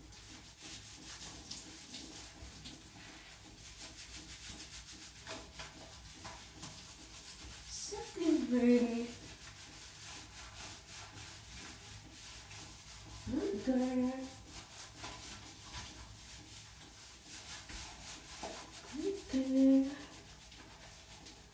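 Rubber-gloved hands scrubbing shampoo lather into a wet Saluki's coat: a steady rubbing. Three short voiced sounds, about a second each, stand out over it, the first a little over a third of the way in, the last near the end.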